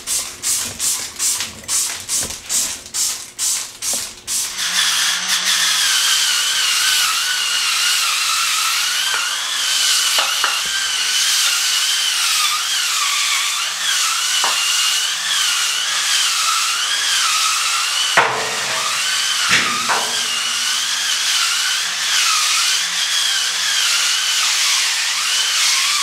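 A trigger spray bottle squirting foaming bathroom cleaner onto floor tiles in quick strokes, about two a second, for the first four seconds or so. Then a handheld electric bathroom scrubber runs steadily, its spinning brush on the wet tiles, its motor whine wavering as it is pushed about. There are two brief knocks past the middle.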